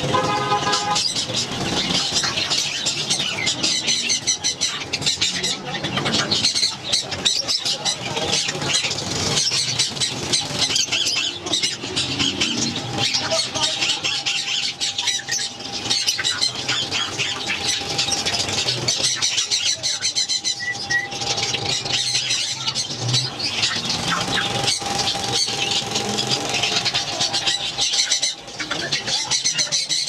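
Many caged birds, budgerigars and other small cage birds among them, chirping and chattering together in a constant high-pitched din.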